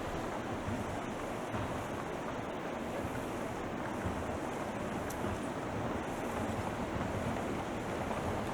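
Steady rushing noise, like wind on an outdoor microphone, with a few faint ticks.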